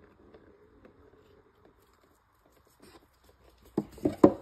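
Handling sounds from a dismantled spin-on oil filter: faint scrapes, then three quick knocks close together near the end, the last the loudest, as the oily pleated element and its metal bottom piece are gripped and worked apart.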